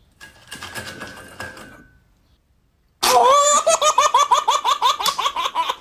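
A loud, high-pitched giggling laugh starts abruptly about three seconds in, in quick rhythmic pulses. Before it there is only faint noise with a short tone that fades out.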